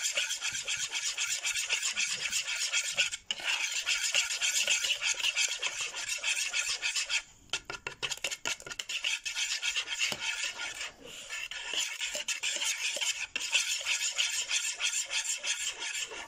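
A whisk scraping rapidly round a plastic 2-litre measuring pitcher, stirring thick financier batter, with short breaks about 3 seconds and 11 seconds in and a longer lull around 7 seconds.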